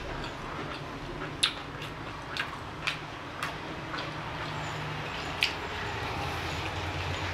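Crispy fried chicken, a KFC piece, being pulled apart by hand and bitten into, with a handful of sharp crackles from the breading over a steady low hum.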